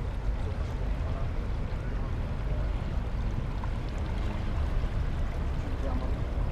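Steady low rumble aboard a yacht under way at slow speed, with a haze of water and wind noise.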